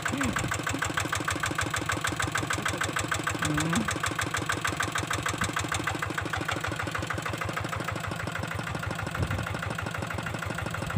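Single-cylinder Kubota diesel engine of a two-wheel hand tractor running steadily with a rapid, even beat.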